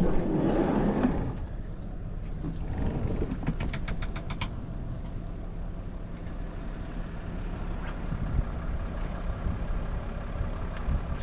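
Steady low rumble of a vehicle engine running, with a loud clatter at the start as a van's sliding side door opens, and a quick run of light clicks a few seconds in.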